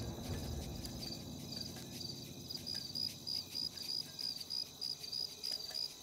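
Crickets chirping at night in a steady rhythm of about three chirps a second, growing plainer about halfway through, over a low rumble that fades out early.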